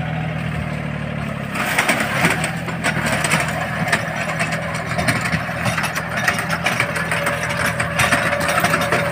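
Small tractor's engine running steadily with a rotavator working in a sugarcane field. About a second and a half in, a loud, continuous crackling and rustling of sugarcane leaves joins the engine and largely covers it as the tractor and rotavator push through the rows.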